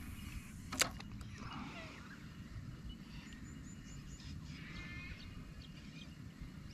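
Faint animal calls, likely birds, over a low steady rumble, with one sharp click about a second in.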